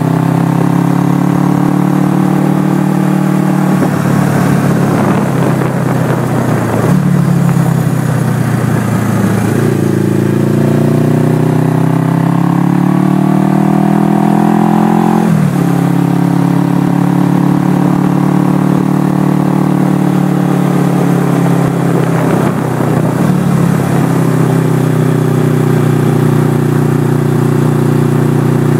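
1979 Suzuki GS425L's air-cooled parallel-twin engine pulling the bike along the road, with wind noise over the microphone. The engine note holds steady, dips briefly, then climbs under acceleration until a sharp drop at an upshift about halfway through, after which it runs steadily at cruising speed.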